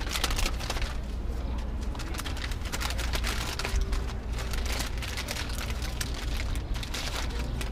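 Brown paper bag crinkling and crackling close to the microphone as food is taken out of it, over a steady low rumble of wind on the microphone.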